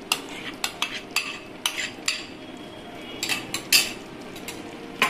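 A metal spoon clinking and scraping against a steel cooking pan while working paste into a curry, about a dozen irregular sharp clicks, the loudest a little before four seconds in.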